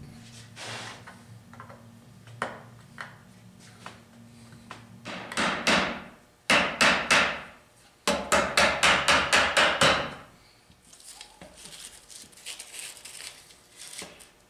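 Hammer blows on a wooden chair frame, knocking at its joints: a few strikes, then a quick run of about ten blows, about five a second, followed by lighter knocks and rattling.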